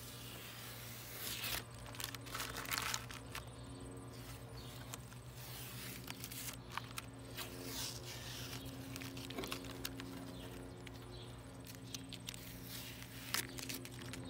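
Rustling and crinkling handling noises with scattered light clicks and knocks, louder in the first few seconds, over a steady low hum.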